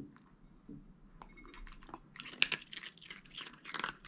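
A dog crunching and chewing a small hard food piece it has just picked off a plate, a run of crisp crackly bites starting about two seconds in. A soft knock at the very start as its mouth meets the plate.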